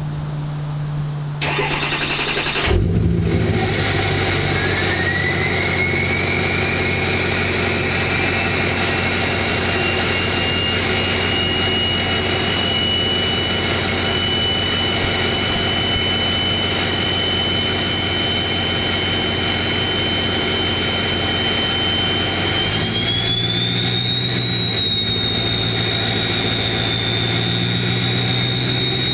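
Ford Powerstroke turbo diesel starting about two and a half seconds in, then idling through a straight-piped exhaust while the turbo whistle rises in pitch and holds steady. Near the end the whistle climbs higher again as the engine speed rises slightly.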